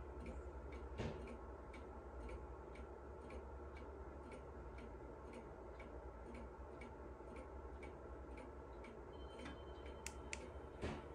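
German Jauch mechanical pendulum wall clock ticking faintly and evenly, about two ticks a second, with a couple of louder clicks near the end.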